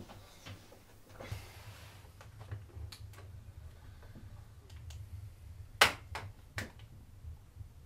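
Scattered sharp clicks and light handling noise at a computer desk: a short rustle about a second in, then three louder clicks close together near the end, over a steady low hum.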